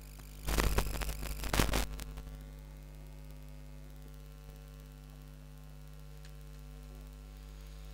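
Microphone being handled: a cluster of knocks and rubbing for about a second and a half just after the start. A steady electrical mains hum runs underneath throughout.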